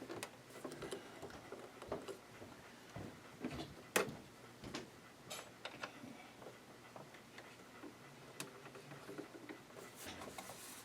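Scattered small clicks and taps of a Janome ME4014 sewing machine being handled and worked on by hand, with one sharper click about four seconds in.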